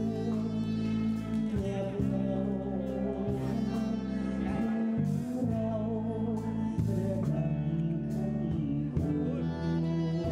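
Music: a song with singing over held bass notes and chords that change every second or two.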